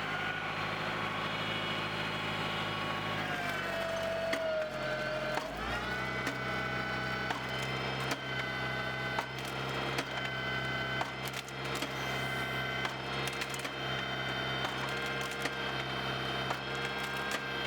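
Tractor engine running under hydraulic load while a Naarva S23C harvester head works a tree. The engine pitch sags for a couple of seconds about four seconds in, then recovers, and wood cracks and splinters repeatedly from then on.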